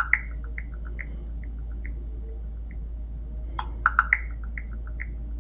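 ChatGPT voice-mode processing sound: a looping string of soft, chirping blips, a few per second, with a cluster of three sharp clicks at the start and again about four seconds in, over a steady low hum.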